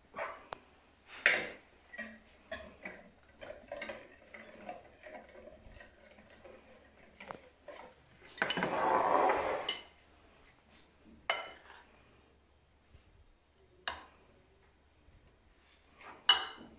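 Wire whisk stirring flour into a wet dough in a plastic mixing bowl: soft scraping with small ticks and several sharp clinks of the whisk against the bowl. About halfway through comes a loud, breathy rush of noise lasting about a second.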